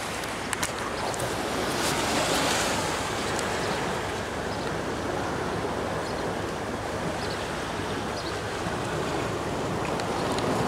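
Sea waves washing over a rocky shore, a steady rushing wash of surf with no break. A couple of faint clicks sound about half a second in.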